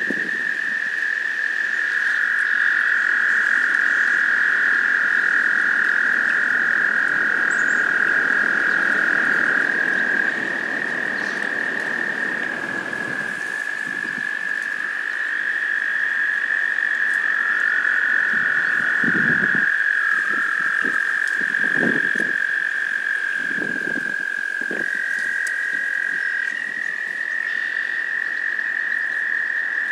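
Several American toads trilling in chorus: long, steady, high trills overlap at slightly different pitches, one dropping out and another taking over every few seconds.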